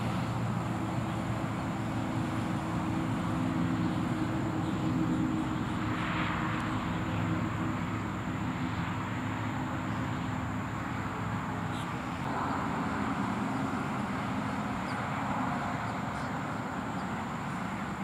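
Steady low engine drone with several low hum tones, which weaken after about twelve seconds, leaving a plainer rumble.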